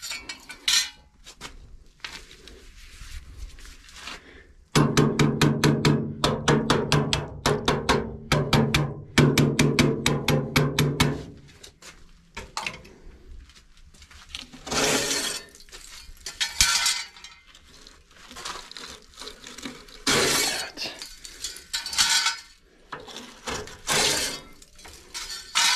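Steel turbulator inserts being worked loose from a solid-fuel boiler's flue tubes, where some are stuck. There is a quick train of metal strikes with a ringing tone from about 5 to 11 seconds in, then scattered bouts of metal scraping and clinking.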